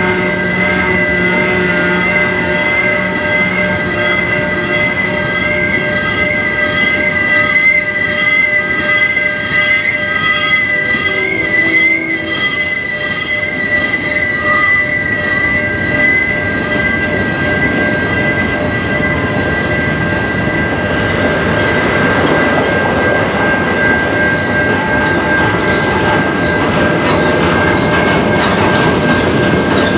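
Freight train of tank cars and covered hoppers rolling past, its wheels squealing in several steady high-pitched tones that waver. The squeal eases about two-thirds of the way through, leaving the broad rumble of the rolling cars.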